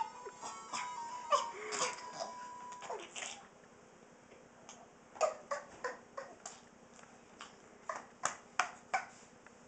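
Playful fake coughing: a quick run of short, sharp coughs between about five and nine seconds in, done to make a baby laugh.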